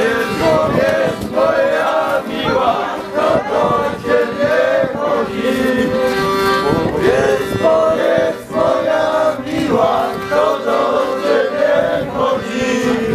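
A group of voices singing together, with a steady held note beneath them.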